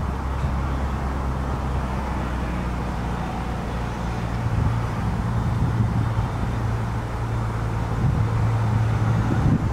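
Jeep Cherokee idling as it coasts backward toward the microphone, a steady low engine hum over tyre noise on asphalt. The hum grows louder about halfway through as the car nears.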